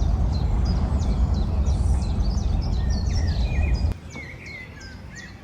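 Many small birds chirping and calling over a loud, low rumbling noise. The rumble cuts off abruptly about four seconds in, leaving the birdsong clearer against a quieter background.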